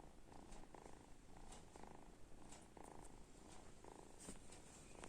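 Kitten snoring softly: a faint, even, purr-like rasp that repeats about twice a second.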